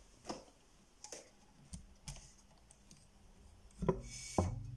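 Handling noise: scattered light clicks and rustles of things being moved about, with two louder knocks near the end.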